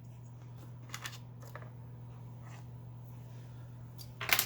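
Handling noises as a diagnostic harness is hooked up to a Commodore 64: a few light clicks, then a short sharp clatter near the end, over a steady low hum.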